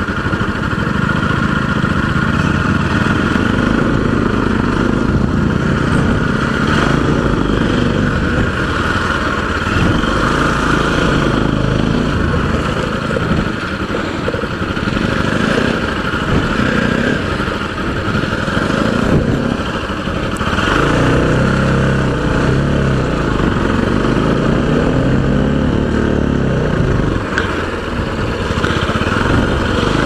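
Motorcycle engine running at low speed as the bike is ridden slowly over a rough, rocky dirt track, under a steady rushing noise.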